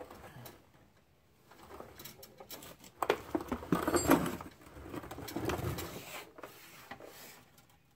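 Scraping and rustling handling noises with a few sharp clicks, loudest about three to four seconds in, as a new metal brake line is worked into place along the car's underbody.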